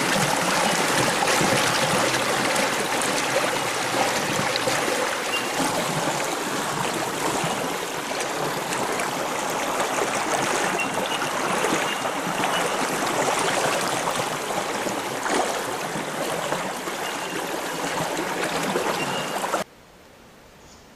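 Running water, a steady rushing stream sound. It cuts off suddenly near the end, leaving a much quieter outdoor background.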